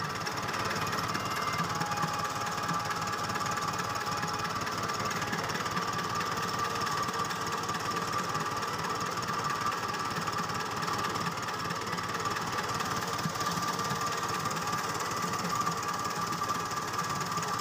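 Mahindra tractor's diesel engine idling steadily with the radiator cap off. A leaking head gasket is forcing compression into the radiator, which is why the tractor pushes water out of it.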